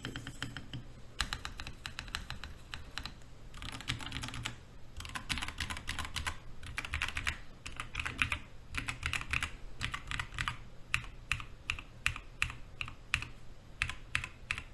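Typing sound test on a Feker IK75 v3 75% keyboard with a polycarbonate plate, unlubed Feker Panda tactile switches, unmodded stabilizers, no foam and PBT keycaps. It starts with fast runs of key clacks, and in the last few seconds these turn into separate, evenly spaced keystrokes about three a second. The sound is fairly deep.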